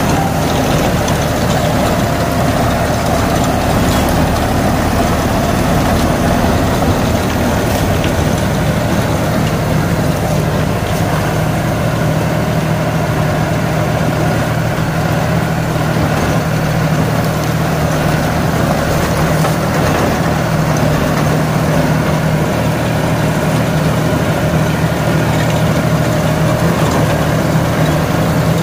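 Deutz-Fahr Agrolux 80 tractor's diesel engine running steadily under load as it drives a Shaktiman Tusker rotavator mulching banana stalks.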